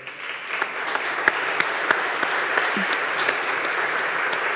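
Audience applauding, rising over the first second and then holding steady.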